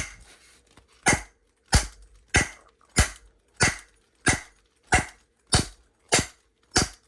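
A block of wood striking a Disecu padlock over and over in a steady rhythm, about eleven sharp knocks at roughly one and a half a second. It is a beating test to see whether blows can knock the shackle open.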